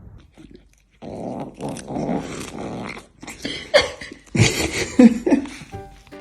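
A dog growling, with four short, loud outbursts in the second half.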